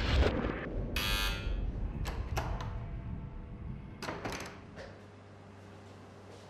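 A short, harsh buzz about a second in over a low rumble, followed by a few sharp clicks. After about five seconds the rumble drops away, leaving only a faint steady hum.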